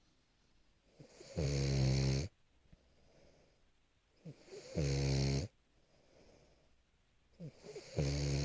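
French bulldog snoring while asleep: three loud, low buzzing snores about three seconds apart, each lasting just under a second and led in by a short snort, with faint breathing between them.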